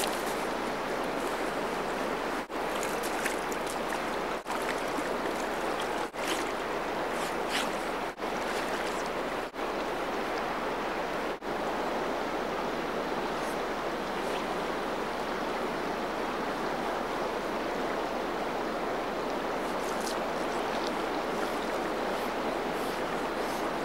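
Simpson River water rushing steadily past, an even, unbroken sound of flowing current. In the first half the sound drops out for an instant about six times.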